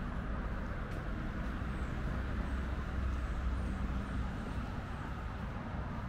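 Steady hum of road traffic, a continuous low rumble with no single vehicle standing out.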